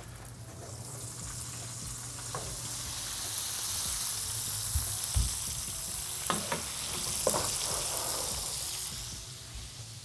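Roast chicken's juices sizzling in a hot metal roasting pan just out of the oven, the sizzle swelling and then fading near the end. A couple of knocks about six and seven seconds in as the pan is set down on the stove grates.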